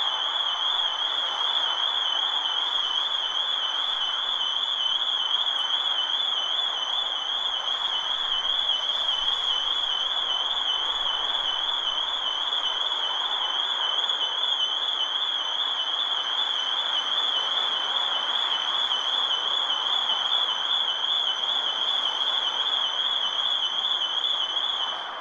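Electronic alarm siren sounding one continuous high, fast-warbling tone over steady city street noise, stopping at the very end.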